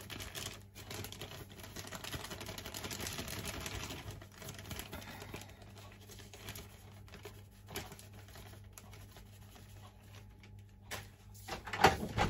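Glutinous rice flour pouring from a plastic bag into a stainless steel bowl: a soft hissing rustle, strongest for the first few seconds, then thinning to a light patter. Near the end the plastic bag crinkles loudly as it is lifted away.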